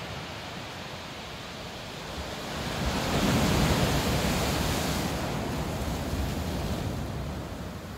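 Sea surf breaking against a rock-armoured shingle shore, a steady rush in which one wave swells to its loudest about three seconds in and then slowly falls away.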